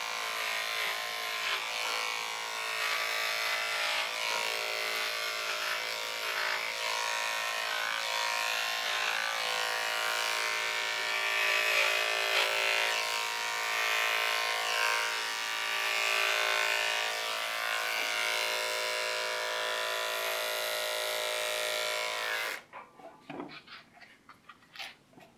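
Corded electric dog-grooming clipper running steadily as it shaves a small dog's coat, then switched off near the end. A few faint, irregular sounds follow.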